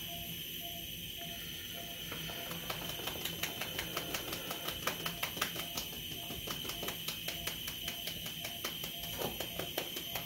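Veterinary anesthesia monitor beeping steadily at about two beeps a second, the pulse tone tracking the anesthetised dog's heartbeat, over a constant high electronic whine. A fast run of sharp clicks starts a few seconds in.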